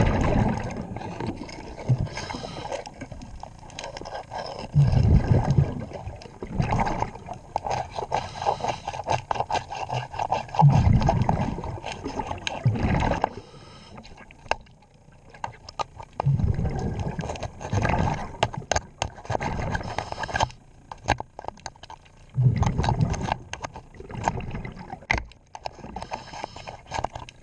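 Underwater scuba breathing, the exhaled bubbles rumbling out about every five to six seconds, with a hand tool scraping and clicking against a boat's propeller as barnacles are cleaned off it.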